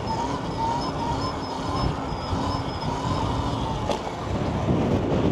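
Wind rushing over the microphone while riding a Sur-Ron electric dirt bike, with the motor's thin whine rising and falling in pitch as speed changes. A short click comes about four seconds in, and the wind surges louder near the end.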